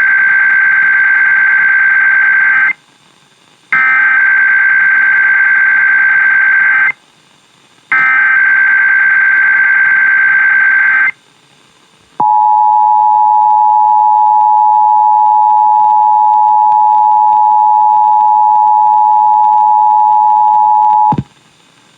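Emergency Alert System tones broadcast over FM radio: three bursts of SAME header data, each about three seconds long and a second apart, encoding a required weekly test. These are followed by the two-tone EAS attention signal, held steady for about nine seconds before it cuts off sharply near the end.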